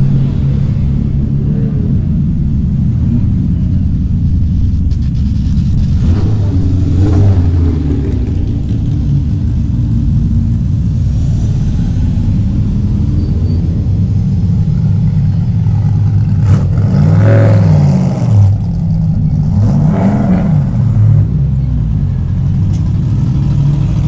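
Classic racing car engines burbling loudly at low revs as the cars crawl past one after another. In the last third there are a few quick revs up and down.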